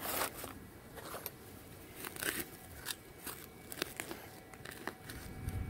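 Crinkling of a finds bag, then scattered crunching and scraping of soil and roots as a hand and digging tool work in the hole.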